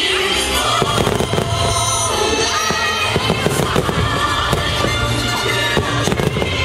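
Aerial fireworks shells bursting in quick succession, a string of sharp bangs and crackles, with music playing underneath throughout.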